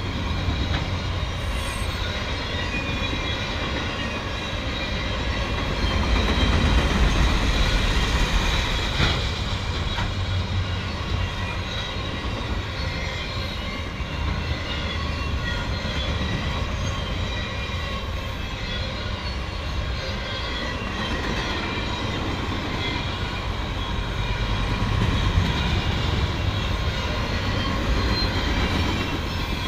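Long freight train of autorack cars rolling past close by: a steady rumble of steel wheels on rail with clatter, and thin high squealing tones over the top. It gets louder for a few seconds about six seconds in and again near the end.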